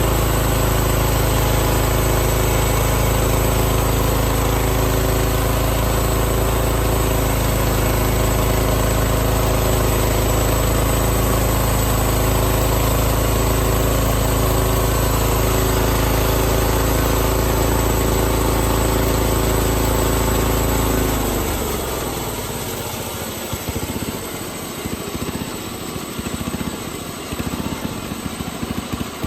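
1988 Kasco II sawmill's engine running steadily at speed with a strong even hum. About three-quarters of the way through its pitch slides down and it drops to a quieter, rougher low-speed run.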